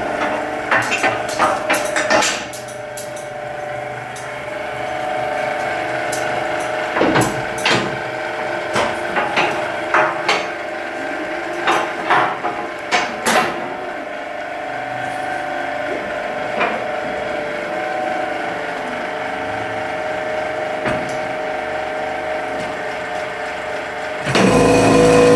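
Sharp wooden knocks and clatter from antique oak blocks being handled and set in place, in small clusters, over a steady background tone. About a second before the end, a hydraulic press's powered pump starts up loudly and runs steadily.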